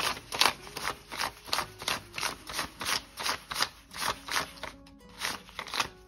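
US dollar bills being counted by hand, each bill flicked off the stack with a crisp paper rustle, about three a second, over soft background music.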